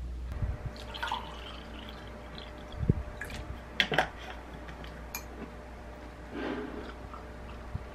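Water poured from a plastic bottle into a drinking glass, with a few short knocks and clicks of the bottle and glass.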